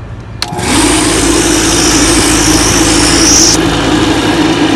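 Refrigeration vacuum pump switched on with a click and running steadily, starting evacuation of the system. A high hiss of air accompanies the start and cuts off suddenly about three and a half seconds in.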